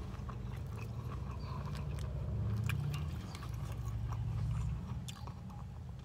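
Close-up chewing of a mouthful of toasted sandwich: soft, wet mouth clicks and smacks over a low, steady hum.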